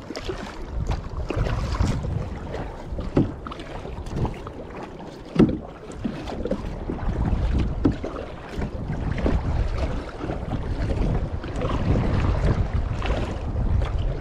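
Wind rumbling on the microphone and water washing along a kayak's hull as it moves across the water, with a few sharp knocks, the loudest about five seconds in.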